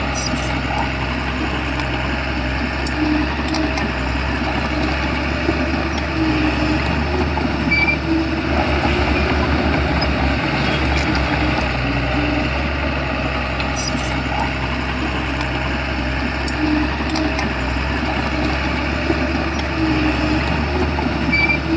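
Bulldozer's diesel engine running steadily, with a few sharp metallic clicks and clanks, one near the start and a cluster about two-thirds of the way through.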